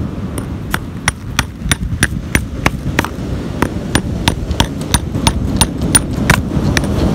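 Hammer striking a steel chisel about three times a second, each blow a sharp ringing clink, chipping a fossil lobster nodule off a hard cracker concretion. A steady low rush runs underneath.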